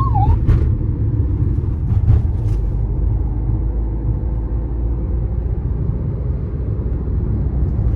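Low, steady rumble of a car on the road, with a few brief clicks. A wailing siren that rises and falls in pitch stops just after the start.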